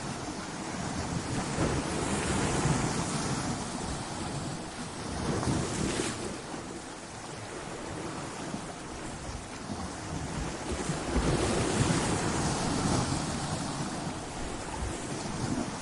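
Ocean waves breaking against coastal rocks: a continuous rush of surf that swells louder every few seconds as waves hit.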